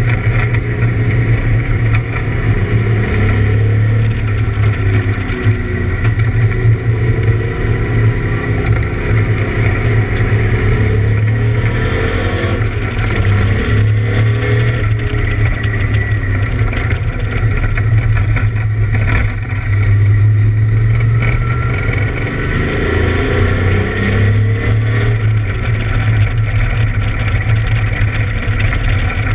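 Camaro race car engine running hard at speed, its pitch climbing over a few seconds and dropping again several times as it revs through the gears, over a steady heavy low rumble. The engine is running with a misfire.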